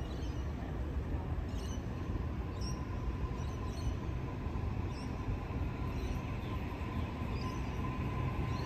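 Sydney Trains Waratah double-deck electric train running into the platform: a steady low rumble of wheels on rail with a thin steady whine from about a second in, and short high squeaks recurring about once a second.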